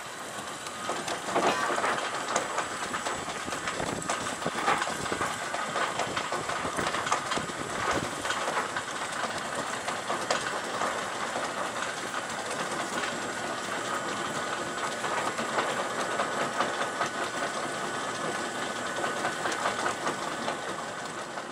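Steady rushing noise with a dense, rapid ticking rattle running through it, from a sailing yacht under way.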